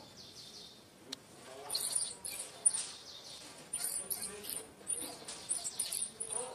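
Infant macaque squealing in a rapid string of shrill, high-pitched cries, starting about two seconds in.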